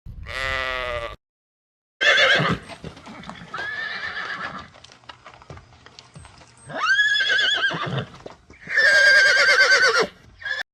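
A short sheep bleat at the start, then a horse whinnying four times, high and quavering.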